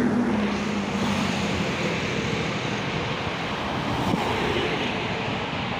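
Highway traffic passing close by: cars and a bus driving past in a steady rush of engine and tyre noise, with a low engine hum near the start.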